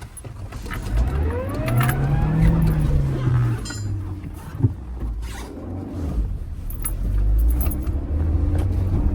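Four-wheel-drive SUV engine working under load as it crawls over an off-road obstacle, revving up about a second in, easing off, then building again near the end. A few sharp knocks from the body and suspension.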